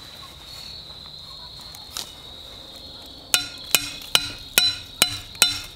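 Hammer blows on a steel driver rod, driving a Berkshire disposable stake into the ground: six sharp, ringing metallic strikes about two and a half a second, starting a little past halfway. A steady high insect drone sounds underneath.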